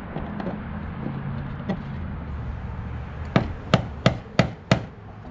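Five sharp hammer taps on a screwdriver, driving the fuel pump lock ring around on the tank. The taps come about three a second in the second half.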